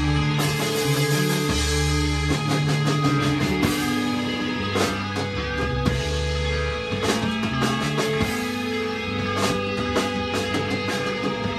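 Live instrumental psychedelic rock jam: electric guitar over long, held low bass notes, with frequent drum hits.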